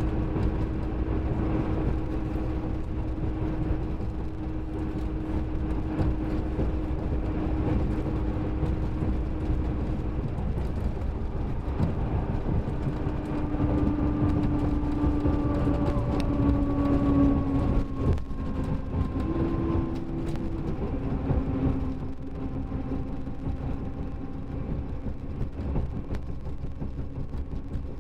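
Mercedes-Benz OM-457LA straight-six turbodiesel of a double-decker coach with a ZF automatic gearbox, running under way: a steady low rumble with a whining tone that shifts and steps in pitch several times in the second half.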